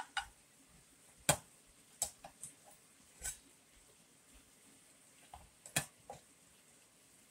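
A person eating: irregular short clicks and smacks from chewing and from the fork and spoon against the plate, the loudest about a second in and again near six seconds in.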